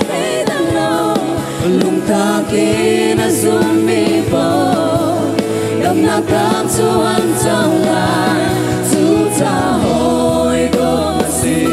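A Lai-language gospel song performed live: several women singing together into microphones over a band with electric guitar, drums and cymbals.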